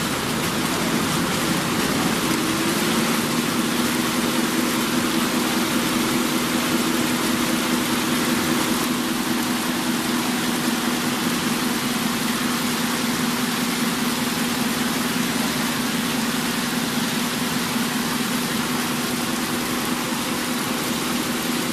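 Champion Machinery paper-bag rope braiding machine running at speed, its bobbin carriers circling the braiding head: a steady, dense mechanical noise with a steady low hum that sets in about two seconds in.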